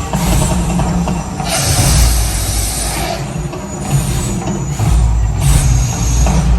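The Mirage Volcano attraction's eruption effects: a deep, continuous rumble with hissing, roaring surges that swell in waves every few seconds.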